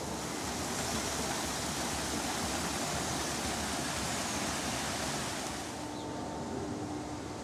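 Steady rush of running water at a pond, like a small waterfall. Near the end the rush fades and a steady two-tone machine hum comes in.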